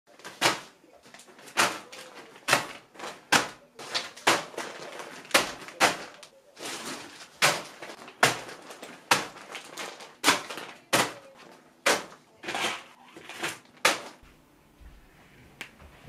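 Mechanical keyboard switches clacking: sharp plastic clicks at an irregular pace of one or two a second, with lighter clatter between them, stopping about two seconds before the end.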